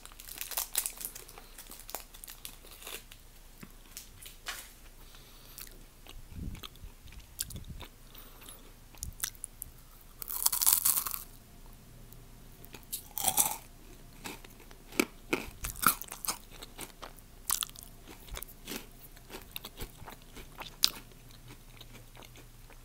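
Biting and chewing a Raffaello candy, a crisp wafer shell with coconut and almond, with irregular small crunches and mouth sounds throughout.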